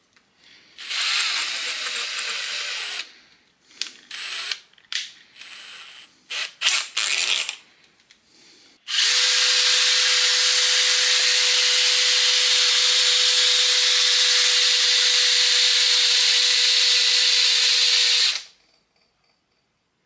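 Makita DDF485 cordless drill spinning to twist a pair of wires together: a run of about two seconds, a string of short trigger blips, then a steady run of about nine seconds at constant speed that cuts off sharply.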